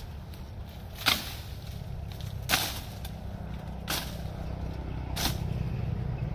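Blade strokes chopping into bamboo stems and brush, four sharp swishing chops at an even pace about a second and a half apart, over a steady low rumble.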